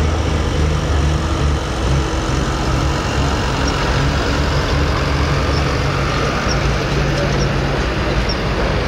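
Pro Stock pulling tractor's turbocharged diesel engine running loud at a steady pitch.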